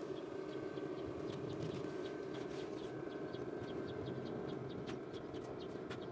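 Yard inflatable's base blower fan running steadily as the inflatable fills, with a quick run of short high chirps over it and a couple of sharp clicks near the end.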